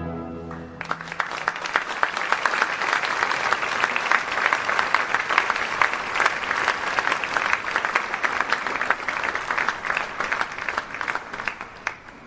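The orchestra's last held chord dies away, and about a second in the audience breaks into applause. The clapping keeps going steadily, then thins out near the end.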